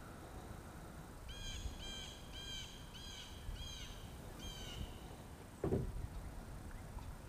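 A bird calling a series of six arched, ringing notes starting about a second in, over a faint low background rumble; near the end a single dull thump is the loudest sound.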